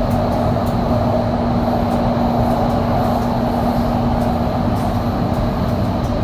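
Metro train running, a steady rumble with a low humming tone that fades out about four and a half seconds in.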